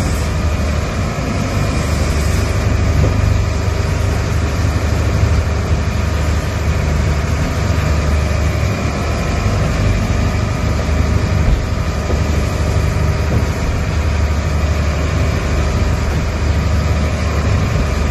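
Fishing boat's engine running steadily under way, a deep continuous rumble heard from inside the cabin, with the rush of wind and water over it.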